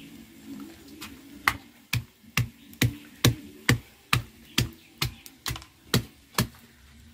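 Wooden pestle pounding garlic and small green peppers in a pilón mortar: steady, even strikes about two a second, starting about a second and a half in.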